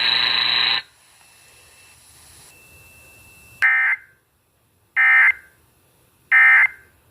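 Emergency Alert System end-of-message signal on an FM radio broadcast: three short bursts of digital data tones about a second apart, the EAS code that closes the flash flood warning. The louder broadcast audio before them cuts off just under a second in.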